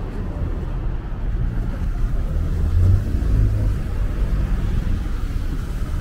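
Low rumble of a motor vehicle running nearby in street traffic, swelling to its loudest about three seconds in.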